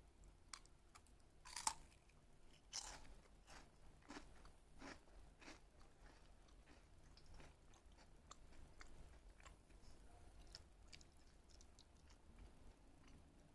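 Faint crunching and chewing of a crunchy snack: scattered small crackles and clicks, with two louder crunches in the first three seconds.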